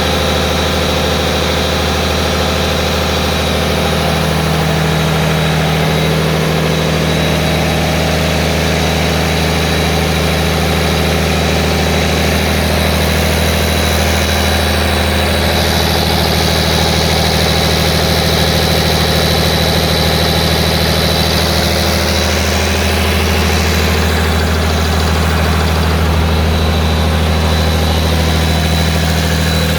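Freshly rebuilt diesel engine idling steadily on its test run, with a thin steady high whine above the engine note.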